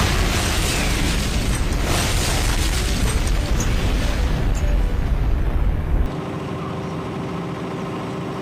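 An explosion: a sudden bang followed by a heavy rumble lasting about six seconds, which cuts off abruptly. Music plays under it and carries on afterwards.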